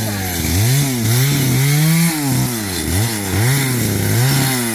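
Small engine, likely a chainsaw, revved up and down in quick repeated throttle blips, its pitch rising and falling about twice a second.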